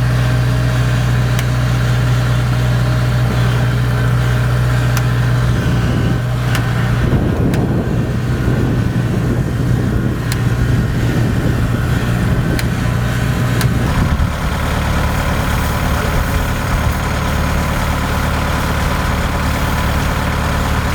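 Kubota DC70 combine harvester's diesel engine running steadily. A rougher, rattling noise joins it from about six seconds in, and at about fourteen seconds the engine note changes and settles again.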